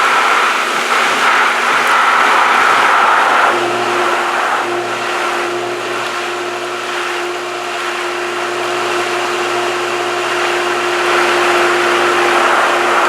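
Pool pump running as it primes, a loud steady rush of water and air through the pump and pipes. A steady electric motor hum comes in about three and a half seconds in.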